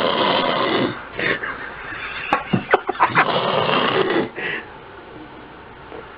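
A sleeping person snoring loudly: two long snores, with a quick run of short sharp sputters between them about halfway through, then a pause near the end.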